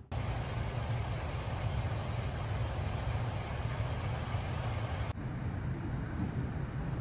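Steady low engine rumble of an idling coach bus, under a faint outdoor hiss. The sound breaks off for an instant about five seconds in, then carries on.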